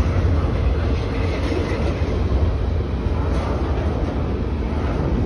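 Double-stack intermodal container cars of a freight train rolling past, a steady noise of steel wheels on the rails, strongest in the deep bass.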